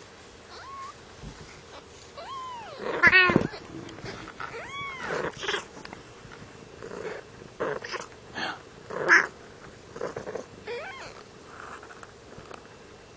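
Cat meowing again and again: short, high calls that rise and fall in pitch, spaced a second or two apart. The loudest is a cluster about three seconds in.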